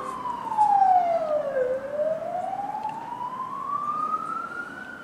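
Police car siren wailing as it passes: the pitch falls slowly to a low point about a second and a half in, then climbs back up over about three seconds.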